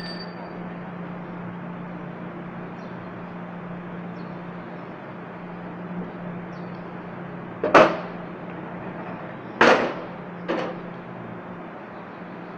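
Three sharp knocks over a steady low hum: two about two seconds apart, then a third soon after.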